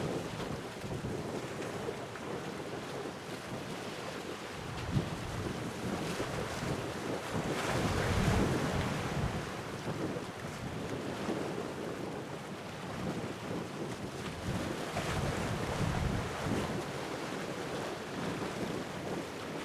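Sea waves washing against the shore, swelling louder twice, with wind rumbling on the microphone.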